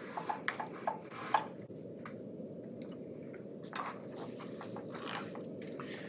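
Footsteps and small knocks as a person walks across a conference room and reaches for a chair, picked up at a distance by a conference-room microphone array and heard through a Zoom call's far-end audio, over a steady low hum of room noise. The knocks come in a cluster in the first second and a half and again around four to five seconds in.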